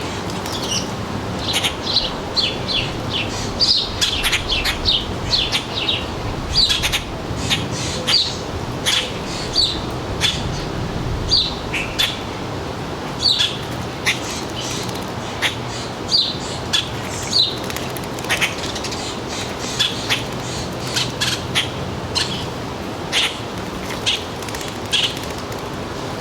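Small birds giving many short, sharp chirps at irregular intervals, often one or two a second, over a steady low background hum.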